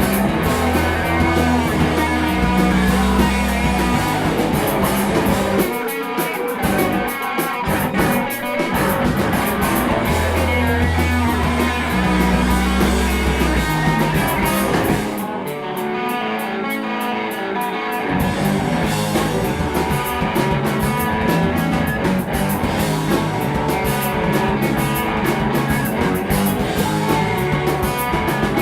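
Rock music with guitar, bass and drums. About halfway through, the bass and drums drop out for roughly three seconds, then the full band comes back in.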